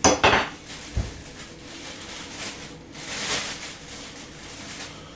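A spoon knocks sharply against a bowl a few times, with a dull thump about a second in, then scrapes and scoops soft chicken salad out of the bowl.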